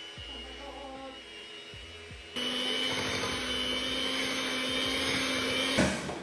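Electric hand mixer running steadily with its twin beaters in brownie batter in a ceramic bowl, a steady motor whir. It is quiet at first, jumps louder a little over two seconds in, and cuts off near the end.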